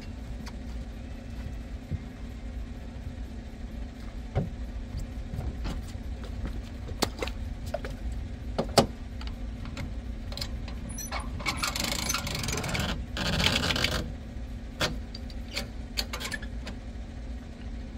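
Scattered metallic clicks and rattles as a boat trailer's winch strap and bow hook are handled, with a longer rasping stretch about two-thirds of the way through, over a steady low rumble.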